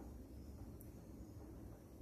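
Near silence: faint low room hum.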